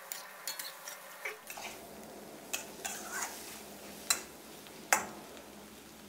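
Metal spatula scraping and knocking against a stainless-steel wok as scrambled eggs are tossed, with a few sharper clinks, the loudest about four and five seconds in.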